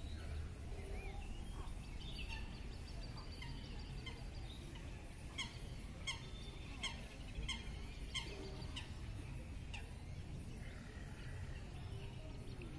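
A bird calling a run of about six short, sharp notes spaced under a second apart, over a steady low rumble.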